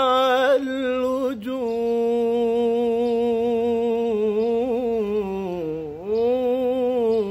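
Solo male voice singing an unaccompanied Islamic inshad (religious praise song), stretching one syllable into a long melismatic note. After a short ornamented run it holds the note steady, then swoops down low about six seconds in and rises back.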